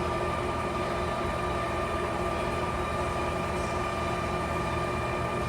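Clausing Colchester 17 x 80 engine lathe running at 115 rpm with the lead screw turning and the threading engaged: a steady mechanical running sound with several steady tones from the headstock and gear train.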